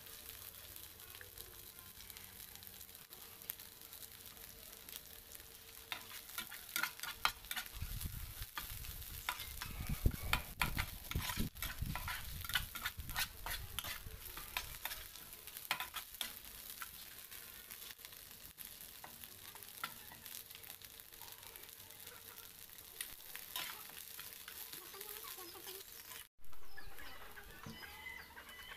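Metal spatula stirring and scraping a frying spice-paste mixture around a nonstick frying pan over a steady sizzle. The scraping strokes come thick and fast in the middle, with a low rumble, and a short break and a sudden louder sound near the end.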